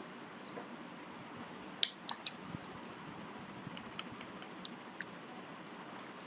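Scattered small clicks and ticks over a steady low hiss, the sharpest about two seconds in.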